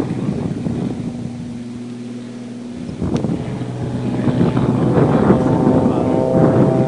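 Light propeller-driven aerobatic plane's engine droning steadily, then growing louder from about three seconds in, its pitch rising as the plane comes closer or powers up.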